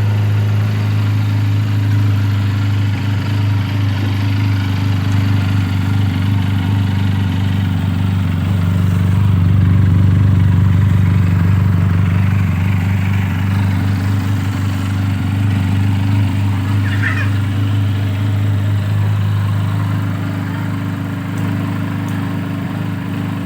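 Benelli 300's parallel-twin engine idling steadily through its stock exhaust, getting a little louder around ten seconds in.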